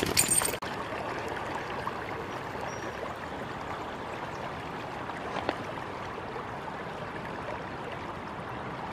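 Shallow mountain river flowing over a rocky riffle: a steady, even rushing of water. A brief burst of clicking and rustling in the first half-second cuts off suddenly, and one faint tick comes about five and a half seconds in.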